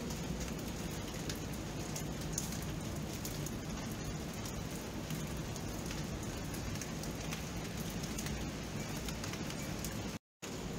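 Steady rain, an even hiss with scattered individual drop ticks. The sound cuts out completely for a moment near the end, then resumes.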